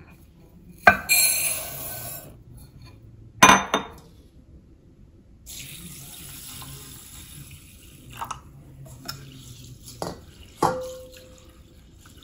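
Dry basmati rice poured from a glass bowl into a larger glass bowl, a clink followed by a rustling hiss, then a bowl set down with a knock. Water is then poured onto the rice from a stainless steel bowl for a couple of seconds, followed by glass clinks, one of which rings briefly, as hands start to swish the rice in the water to rinse it.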